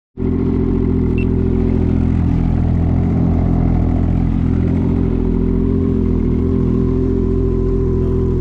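Snowmobile engine idling steadily, freshly started in deep cold.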